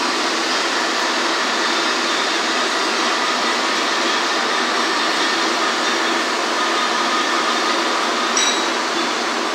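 Steady rushing air of a welding booth's ventilation fan, with one brief click a little over eight seconds in.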